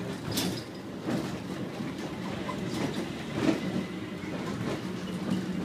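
Airport inter-terminal people-mover train car in motion, heard from inside: a steady rumble with a low hum and a few sharp clicks and knocks.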